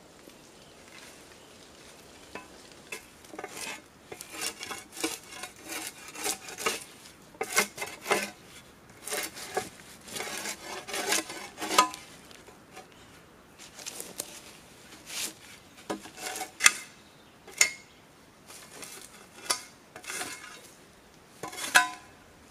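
Steel shovel blade scraping bark off a log in runs of quick strokes with short pauses between, now and then giving a sharp metallic clink.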